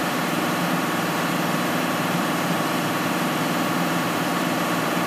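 Steady, unbroken drone of running engine-room machinery aboard a ship, with no distinct knocks or strikes over it.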